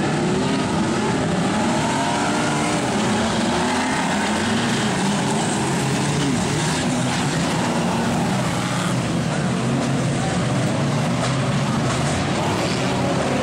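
Engines of a pack of speedway stock cars running together as they circle the dirt track, many engines at once, their pitch rising and falling.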